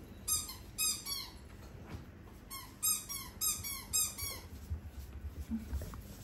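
A squeaky toy ball squeaking as an otter plays with it: short squeaks that drop slightly in pitch, first a few at a time, then a quicker run of about seven near the middle, heard as 'pipu pipu'.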